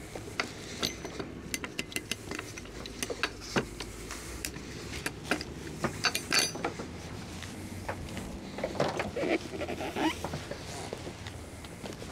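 Irregular light clicks, clinks and knocks of dock lines and boat hardware being handled aboard moored boats, with a short creak about nine seconds in.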